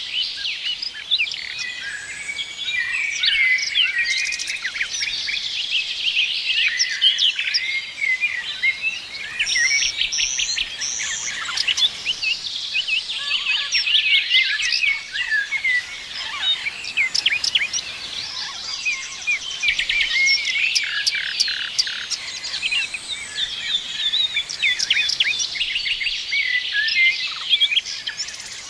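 A chorus of many songbirds chirping and singing at once: a dense, unbroken tangle of short high chirps, quick trills and rapid ticking notes.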